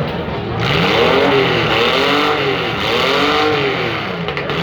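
Demolition derby compact car engines revving up and falling back over and over, about once a second.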